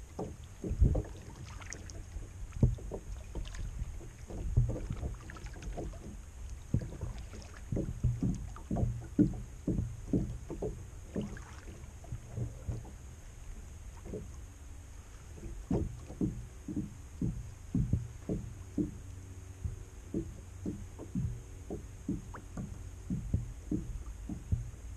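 Kayak paddling: paddle strokes in the water with short, dull knocks, about one or two a second, over a steady low rumble.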